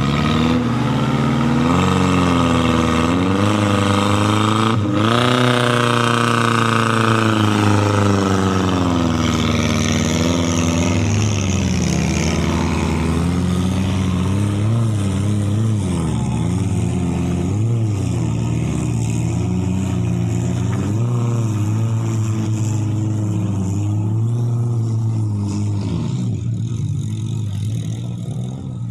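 Small Suzuki 4x4's engine revving up and down over and over as it labours up a steep, muddy off-road climb. The sound eases off in the last few seconds.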